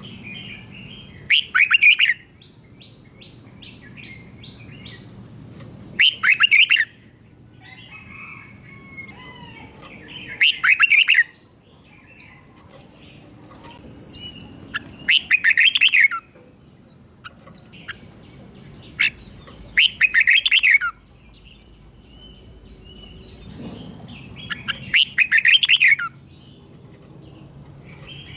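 Red-whiskered bulbul singing loud, rapid song phrases of the doubled type Thai keepers call 'beun', six times at intervals of about four to five seconds. Softer short chirps and calls come between the phrases.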